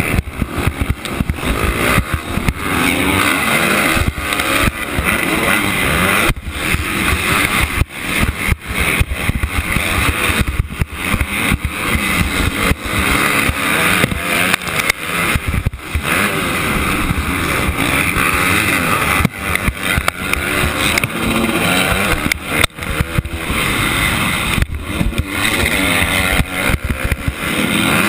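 Motocross dirt bike engine racing at high revs, repeatedly rising and dropping back with the throttle, heard close up from a helmet camera, with other bikes racing alongside.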